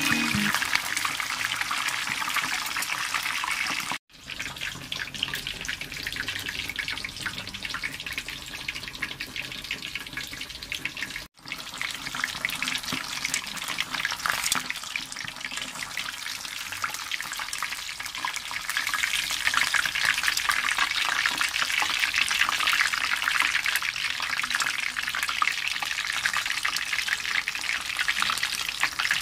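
Whole chicken deep-frying in hot oil: a steady sizzle with fine crackling from the bubbling oil. It is broken by two brief silences, about four and eleven seconds in, and grows louder in the second half.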